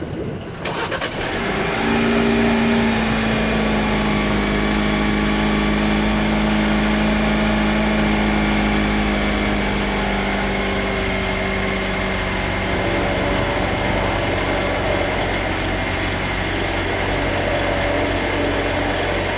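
A steady machine hum with several held tones, the lowest sliding slightly lower over the first few seconds.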